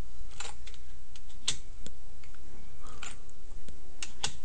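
About five separate clicks of computer keys, spaced out, as copied text is pasted in again and again, over a steady low hum.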